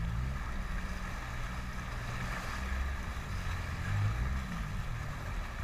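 Small motorboat under way, its engine running steadily at an even throttle, mixed with wind buffeting the microphone and the rush of water past the hull.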